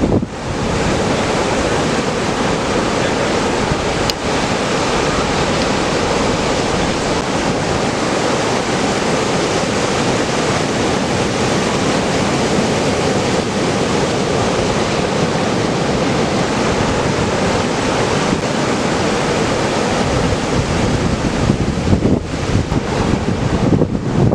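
Ocean surf breaking in a steady, continuous wash, with wind buffeting the microphone.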